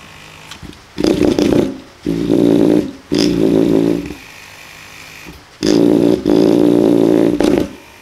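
12-volt windshield wiper motor, driven through an H-bridge as a high-torque steering servo, humming in five short bursts as it starts and stops under remote control.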